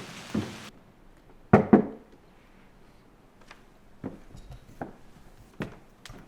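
Steady rain hiss that cuts off suddenly under a second in, then two loud knocks on a wooden door in quick succession, followed by a few faint scattered taps.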